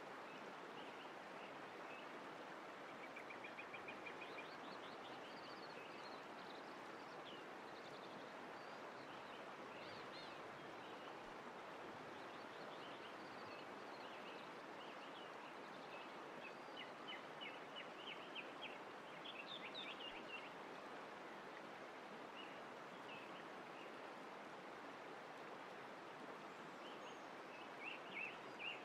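Faint, steady rush of flowing water with small birds chirping over it: a quick trill about three seconds in, and busier chirping around the middle and near the end.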